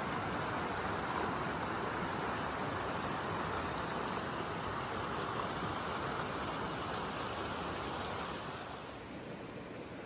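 Mountain stream water rushing steadily, a little softer near the end.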